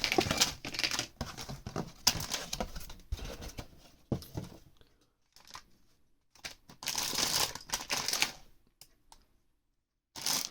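Cardboard LEGO Technic set box being torn open by hand, with crinkling of the plastic parts bags inside. The tearing and rustling come in two spells with a short pause between them, and a few light clicks near the end.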